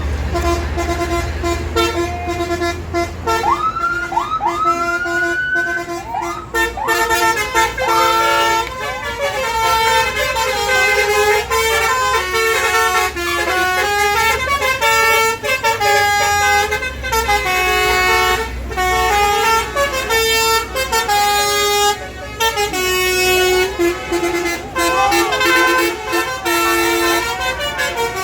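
Basuri musical 'telolet' bus horn playing a melody of stepping multi-tone notes, with several rising swoops a few seconds in. A low engine rumble runs beneath.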